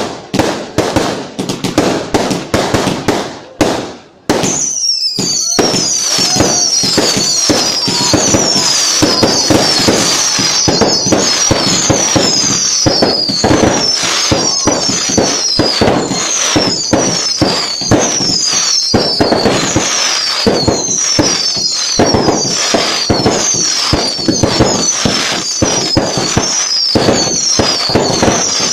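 Fireworks going off: separate loud bangs for the first few seconds, then about four seconds in a dense, continuous barrage of crackling and popping. High falling whistles repeat through the barrage about once or twice a second.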